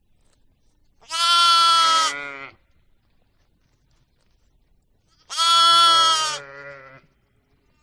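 Two long, loud bleats from a farm animal, one about a second in and one past the middle, each fading into a quieter tail.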